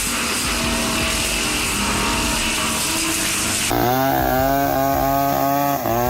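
A steady, noisy din of wood-cutting machinery. About halfway through it cuts to a high-revving chainsaw-type engine holding a steady pitch, with a brief drop near the end.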